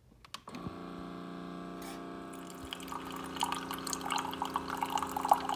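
Single-serve pod coffee maker starting to brew: a couple of button clicks, then its pump starts a steady hum under a second in. From about three seconds in, the coffee trickles and splashes into a ceramic mug over the hum.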